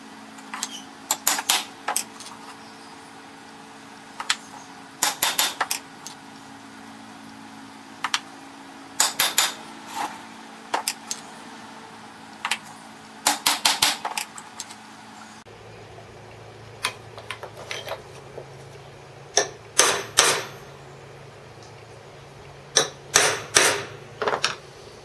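Small hammer tapping a steel center punch on a steel plate to mark hole positions, in short bursts of several sharp metallic taps every few seconds.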